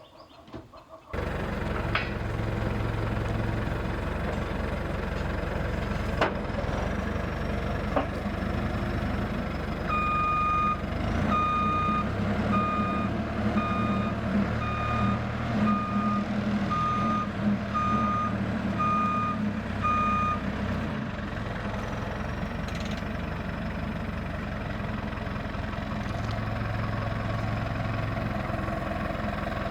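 A vehicle engine running steadily, with a reverse-warning beeper sounding about once a second for some ten seconds in the middle. A few sharp knocks come early on.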